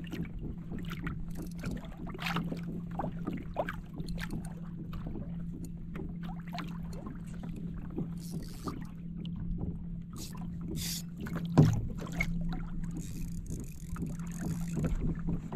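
Small fishing boat on the water: a steady low hum with scattered small clicks and knocks from gear and hull, and one sharp knock about twelve seconds in, while a fish is fought on rod and reel.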